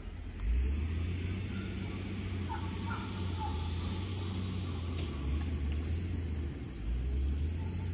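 Wind buffeting the microphone: a low, uneven rumble that starts about half a second in.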